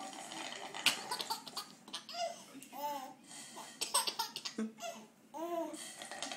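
A baby laughing in several short bursts, with bubbling between them as air is blown through a straw into a glass of water.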